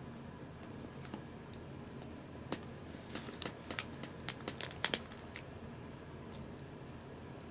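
Small wet clicks and smacks, bunched together between about two and a half and five seconds in, from a newborn kitten licking and suckling milk from a plastic feeding syringe.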